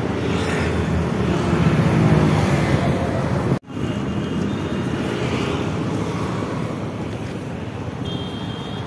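Steady roadside traffic noise: a continuous wash of passing vehicles with some wind. It cuts out abruptly for a moment about three and a half seconds in, and a faint short high tone is heard near the end.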